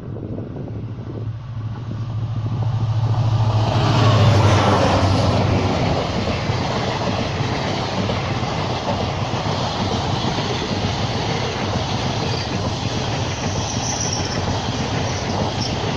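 Two EMD WDP-4D diesel locomotives of a passenger express approach and pass, their engine sound loudest about four seconds in. After them comes the steady rumble and clickety-clack of the coaches' wheels on the rails.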